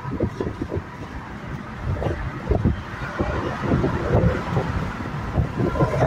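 Car engines and road noise at highway speed, heard through an open car window, with wind buffeting the microphone in irregular low gusts.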